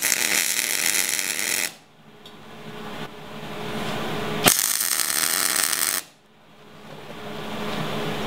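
MIG welder laying two tack welds on a steel frame bracket: two bursts of steady arc crackle and hiss, each about a second and a half long, the second starting about three seconds after the first stops. Each burst cuts off suddenly when the trigger is released.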